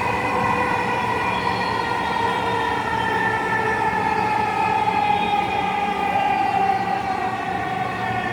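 Dhaka MRT Line 6 metro train running, heard from inside the carriage: steady running noise with an electric motor whine that slowly falls in pitch as the train slows towards the next station.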